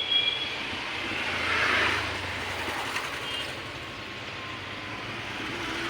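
Passing road traffic: a vehicle's noise swells and fades about two seconds in, over a steady low hum.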